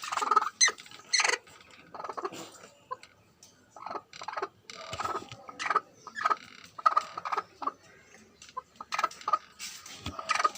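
Broody hen clucking in many short, irregular calls.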